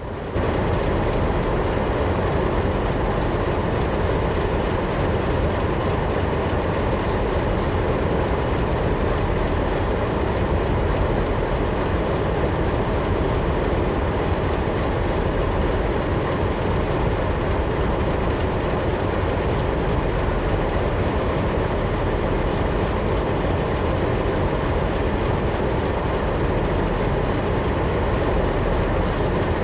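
Several Alco diesel-electric locomotives of the NSW 44 and 48 classes idling together, their engines chortling in a steady, continuous mix.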